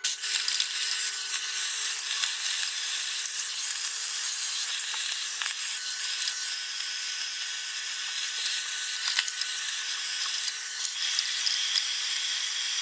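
Vacuum cleaner running loudly and steadily, its motor whining as the hose nozzle sucks dust out of a gas heater's fan compartment, with a few light knocks as the nozzle hits the metal casing.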